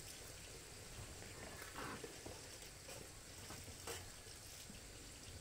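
Quiet background: a faint steady hiss with a few soft knocks, about three over the span.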